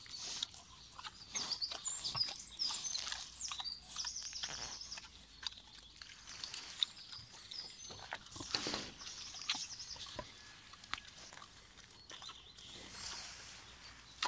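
Linderöd pig eating grass taken from a hand, with crunching, chewing and snuffling noises and a louder snuffle about halfway through. Small birds chirp and trill in the background.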